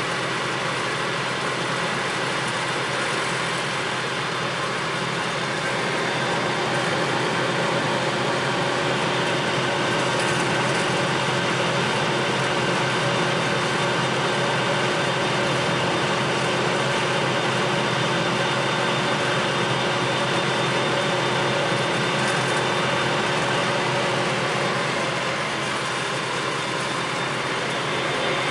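Clausing Colchester Master 2500 engine lathe running under power, with the carriage travelling on power feed: a steady mechanical run of gears and drive with several held tones, a little louder from about six seconds in.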